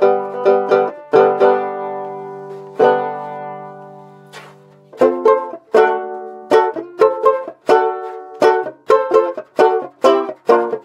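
Kay Professional tenor banjo being strummed: a few chords, then one left to ring and fade for about two seconds, then steady rhythmic chord strumming picks up again about halfway through.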